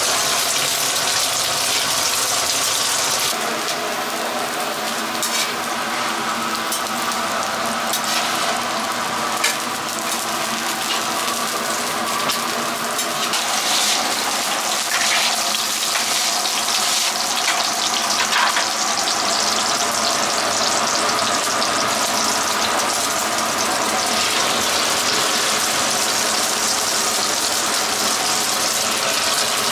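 Egg-battered jeon (zucchini slices, then skewers) sizzling in oil on a flat griddle: a steady frying hiss, with a few short scrapes and clicks partway through.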